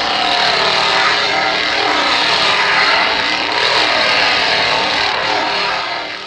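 Petrol chainsaw engine running at high revs, its pitch wavering up and down as it is swung about, fading out near the end.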